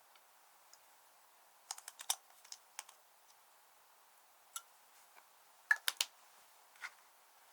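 Clear slime being handled and mixed, its trapped air popping in sharp, irregular clicks: a quick run of them about two seconds in, a few scattered later.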